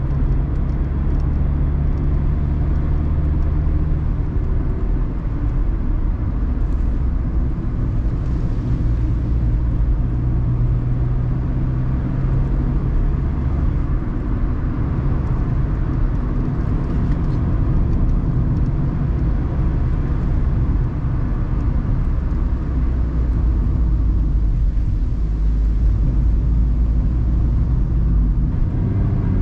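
Mazda ND Roadster's four-cylinder engine running under way, heard on board over tyre and road noise. The engine note steps up and down in pitch every few seconds as the car changes speed.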